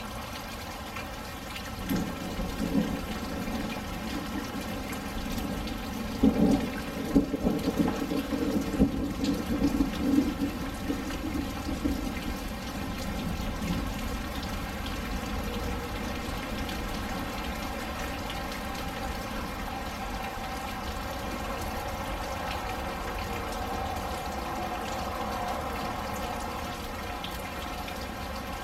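Steady rain falling during a thunderstorm. A short rumble of thunder comes about two seconds in, then a longer, louder rumble of thunder from about six to twelve seconds in.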